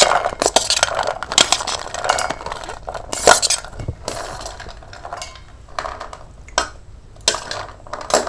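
Steel spoon scraping and clinking against a stainless-steel plate and bowl as boiled sweet corn kernels are pushed off the plate into the bowl. The clinks are irregular and thin out in the second half, with the loudest strike about three seconds in.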